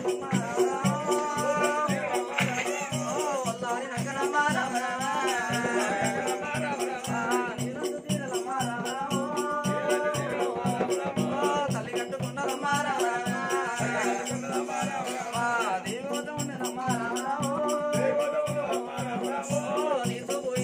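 Telugu Oggu Katha folk performance: a man sings a bending, ornamented melody over a fast, even jingling percussion beat, with a steady low drone underneath.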